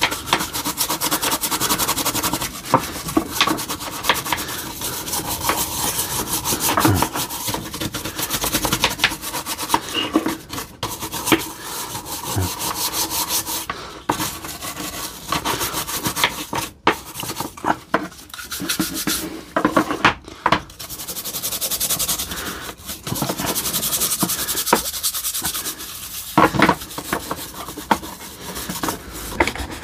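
Small stiff brush scrubbing the wet plastic housing halves of a DeWalt impact wrench: quick back-and-forth scratchy strokes, with a few sharper knocks as the housing is shifted.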